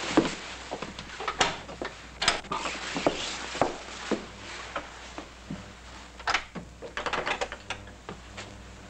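A heavy wooden front door being opened and swung shut, with a string of separate knocks and clicks from the door and from footsteps, including a quick run of clicks about seven seconds in.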